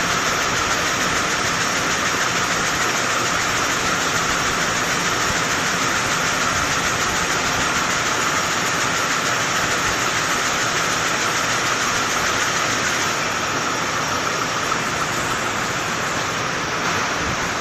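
Canman X7 can body welding machine (body maker) running steadily: a loud, continuous mechanical rush with no separate strokes, easing slightly in the last few seconds.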